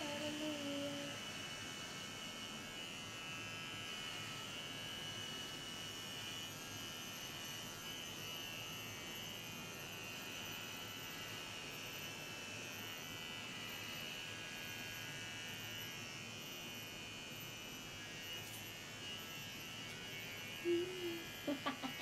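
Cordless electric hair clippers buzzing steadily as they cut a week's growth of short hair from a scalp.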